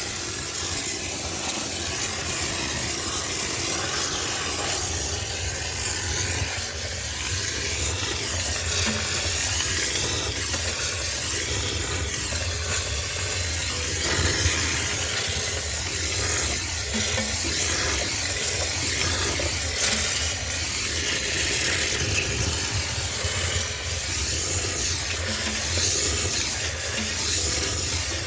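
High-pressure steam cleaner jetting steam into a sneaker washing machine to sterilise it: a steady loud hiss over the low hum of the steamer's unit.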